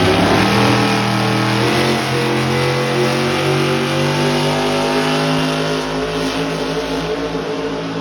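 A pulling truck's engine at high revs under load on a truck-pull track. The pitch climbs in the first half second, then slowly sags as the load pulls the revs down.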